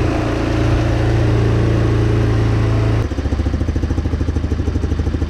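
GY6 150cc single-cylinder four-stroke ATV engine running at a fast idle, which it is set too high for. About three seconds in the sound drops suddenly to a slower idle with an even pulsing beat, as the idle is turned down at the new carburetor.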